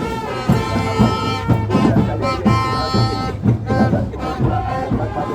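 Live music with drums beating a steady rhythm, about two strokes a second, under held pitched notes from instruments or voices.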